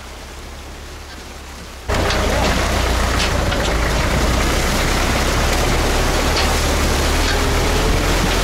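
MTZ-52 tractor's diesel engine running steadily with a loud rushing noise over it, as heard riding on the trailer it tows. A quieter low hum in the first two seconds jumps suddenly to the full loud running.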